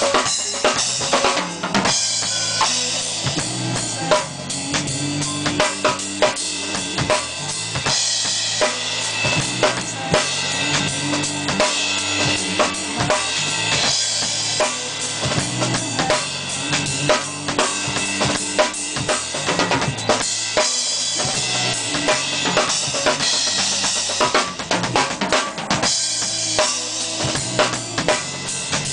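Acoustic drum kit played hard and fast in gospel style: dense bass drum, snare and tom fills with rimshots, under recurring stretches of crashing cymbals.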